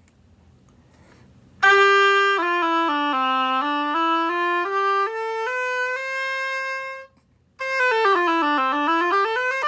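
Oboe playing scales: a run of notes stepping down and back up to a held top note, then, after a short pause, a quicker run down and up again.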